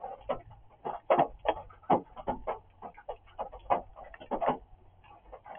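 Rain drumming: drops strike a surface in an irregular patter of short knocks, several a second.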